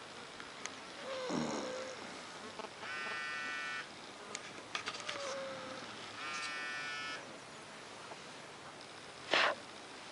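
A sleeping pet snoring: two buzzing, whistle-like snore breaths about three seconds apart, each lasting about a second, with softer sounds between them. A short, louder burst of noise comes near the end.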